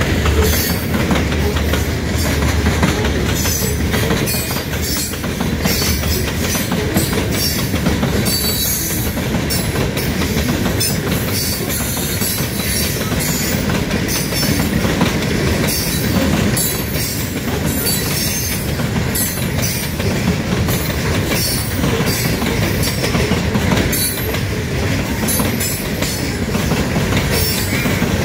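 Freight train of loaded covered hopper cars (salt hoppers) rolling past at close range: a steady rumble of steel wheels on rail with repeated clacking as the wheels cross rail joints. A low drone dies away about four seconds in.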